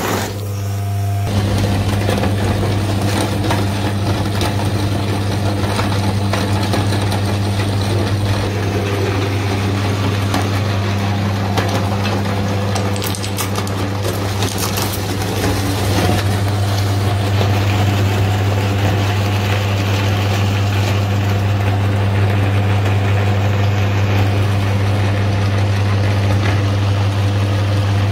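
Electric meat grinder running with a steady low hum, its auger crushing hard swirl lollipops with crunching and cracking.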